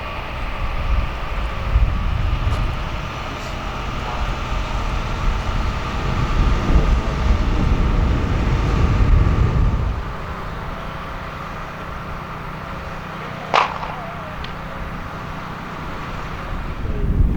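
Wind buffeting the microphone in gusts over a steady mechanical hum, most likely distant engines or machinery. One brief sharp sound with a quick falling tail comes about two-thirds of the way through.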